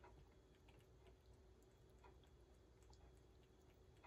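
Faint, irregular little clicks and crunches of a cat eating from a bowl.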